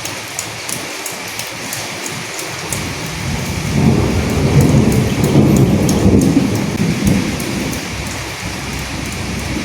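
Steady rain hissing with scattered sharp drop ticks. About three seconds in, a low rumble of thunder swells up, peaks and fades away over roughly five seconds.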